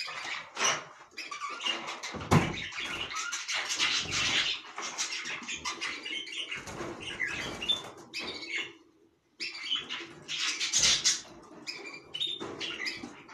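Caged canaries chirping and flapping their wings, mixed with short knocks and rattles as a hand works at a wire cage. The sound drops out briefly about nine seconds in.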